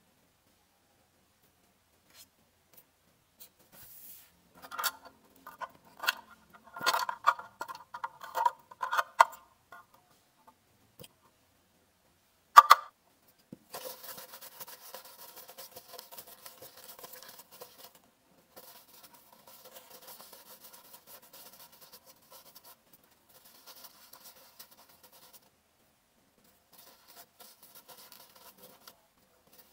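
Small clicks and taps of metal tweezers and coil parts being handled, bunched between about 4 and 10 seconds in, with one sharp louder click near 13 seconds. From about 14 seconds on, tissue paper crinkles and rustles as small pod parts are wiped.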